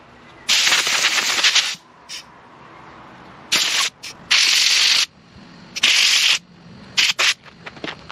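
Compressed air blowing soil off bare succulent roots and out of the rosette leaf gaps, in a series of short hissing blasts.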